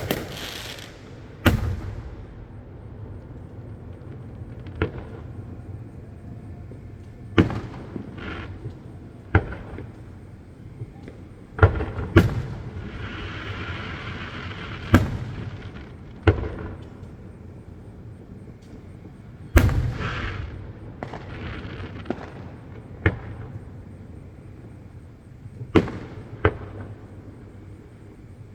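Fireworks shells bursting in booms about every one to three seconds at uneven intervals, each with a short rumbling echo. A spell of hissing crackle comes about halfway through.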